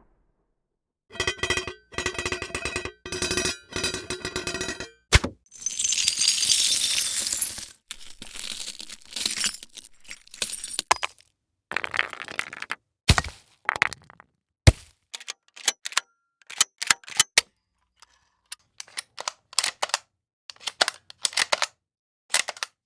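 A string of separate metal and weapon sound effects: four short bursts of rattling, jingling metal with a ringing tone, a single sharp click, a harsh hissing scrape lasting about two seconds, then many short sharp metallic clicks and clacks, some single and some in quick clusters.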